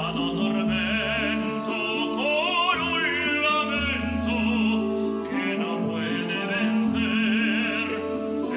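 A man singing in operatic style with wide vibrato over sustained instrumental accompaniment.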